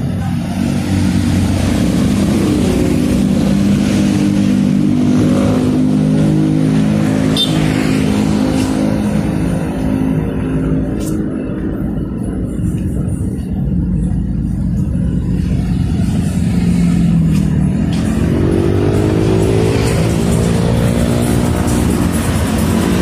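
Road traffic: motor vehicle engines running close by. Near the end a motorcycle engine rises in pitch as it accelerates past.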